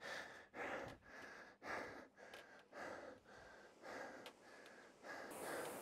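A man breathing hard through his mouth while recovering from a hard cycling interval, with heavy breaths about once a second.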